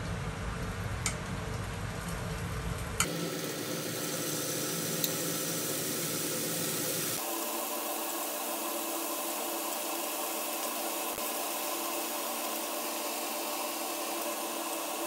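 Steady hissing background noise that changes character abruptly about three seconds in and again about seven seconds in, with a faint steady hum in the last stretch and a few light clicks.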